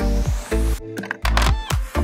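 Background electronic music with a steady beat. A rising sweep leads into a short break about a second in, and then the beat comes back in.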